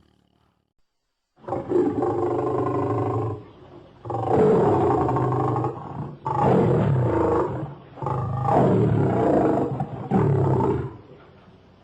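Lion roaring: after a second and a half of silence, several loud roars follow one another, each lasting one to two seconds, with short breaks between.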